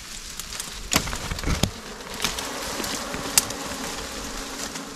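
Dwarf honeybees buzzing close by in a steady hum, with a few sharp snaps and rustles of twigs as the brush is handled.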